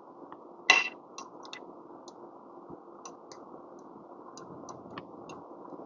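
Light metallic ticks and clicks of an Allen key turning a screw in the espresso machine's group, loosening it so the gauge holder can move, with one louder click about a second in.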